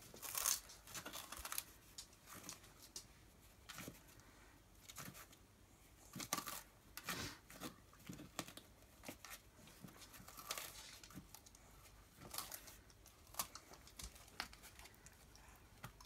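Plastic bag crinkling and rustling in short, irregular bursts as a dog noses and digs into it.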